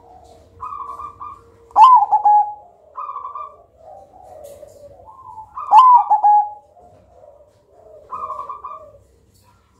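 Caged zebra dove (perkutut) singing its cooing song: repeated phrases of short rolling coos, each with one loud, dipping note, the loudest about two and six seconds in. The voice is thick and loud.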